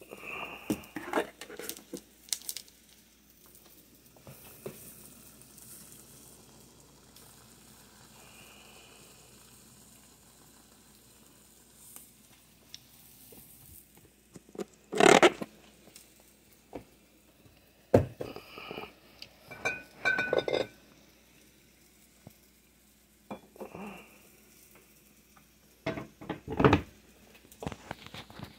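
Kitchenware being handled: dishes and containers clatter and knock as they are taken out of a cupboard and set down on a stone counter. The sharp knocks come singly or in short clusters, with a quieter spell in between.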